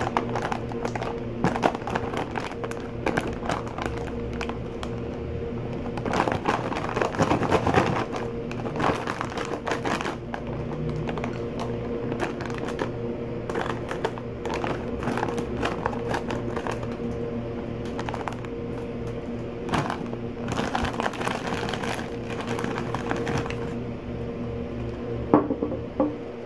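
Background music with a steady beat, over the crinkle and crackle of a foil-plastic snack bag being handled and cut open with scissors.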